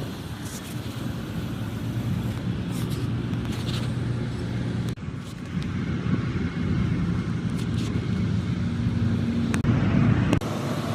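Large diesel engine of a Caterpillar off-road dump truck running steadily, with a couple of brief breaks in the sound, one about halfway and one near the end.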